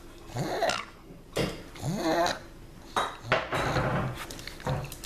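Pug making noisy, rasping breaths and snorts, about seven irregular bursts, some with a short rising squeak.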